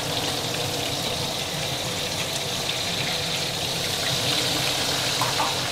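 Mackerel tuna frying in hot oil: a steady sizzle with scattered small pops.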